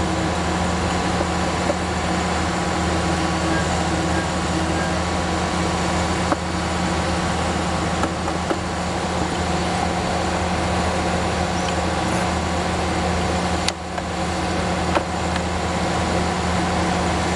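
HFDX-5 full hydraulic core drilling rig's engine running steadily with a constant low hum, with a few short metallic clinks as drill core and core barrel are handled.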